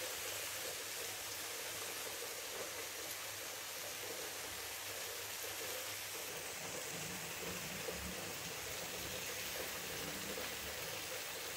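Chicken pieces in masala sizzling steadily in a hot flat griddle pan (tawa), an even frying hiss.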